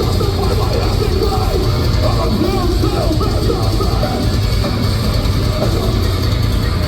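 Loud live heavy metal band music, heard from the crowd, with a heavy steady low end.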